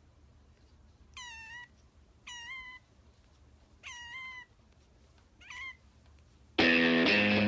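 Tabby kitten mewing four times, short high mews about a second and a half apart, the last one shortest. Near the end, loud guitar music comes in.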